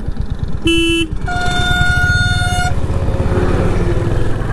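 Two horn blasts over a running single-cylinder motorcycle engine: a short low toot just under a second in, then a longer, higher steady blast. After that the engine note rises as the bike accelerates.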